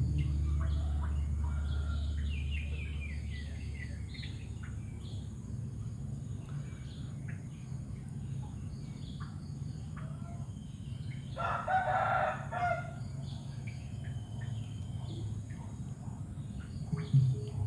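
A rooster crows once, a single call of about a second, past the middle, the loudest sound here. Small birds chirp now and then throughout, and a low steady hum fades over the first few seconds.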